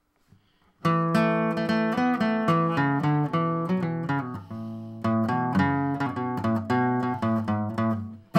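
Guitar playing the instrumental intro of a folk song, picking and strumming single plucked notes and chords that start about a second in.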